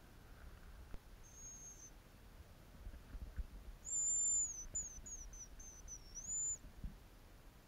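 Very high, thin hazel grouse whistle: a faint long note, then a loud long whistle about four seconds in, followed by a run of short falling notes and a final rising note held briefly.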